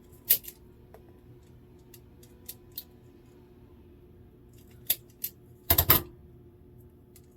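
Sharp clicks and snips of a hand tool working the insulation of an automotive wire: a few single clicks, then a quick cluster of louder snaps about six seconds in.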